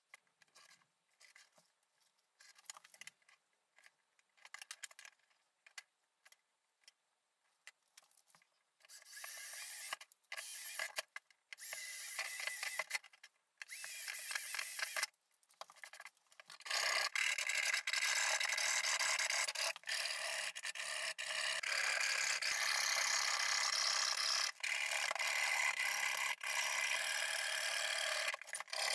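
A cordless drill bores holes through a plastic enclosure lid in several short bursts, starting about a third of the way in. From a little past halfway, a mini hacksaw cuts steadily through the plastic.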